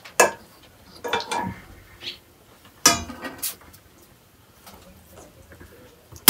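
Stainless steel plates and a serving spoon clinking and knocking as cooked rice is dished out of a metal pot: a handful of short, ringing metallic knocks spread over the first few seconds.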